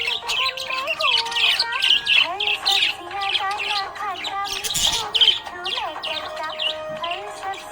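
Budgerigars chirping and warbling: a fast, unbroken stream of short, high chirps, with lower gliding notes running beneath them.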